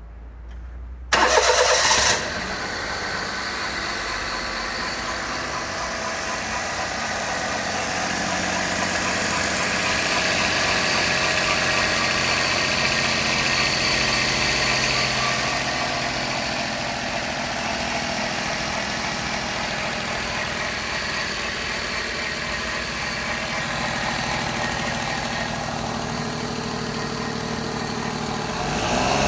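Daihatsu Mira Custom L275S's three-cylinder 660 cc engine starting with a short burst of cranking about a second in, then idling steadily. The idle carries the abnormal noise of a failing water pump, with a faint high steady tone over the engine.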